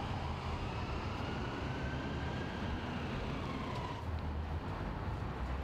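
Street traffic noise: a steady low rumble of passing vehicles, with a faint tone that slowly rises and then falls away.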